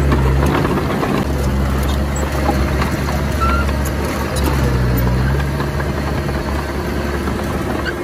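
Komatsu D20P bulldozer's diesel engine running steadily as it works, with light clicks over it.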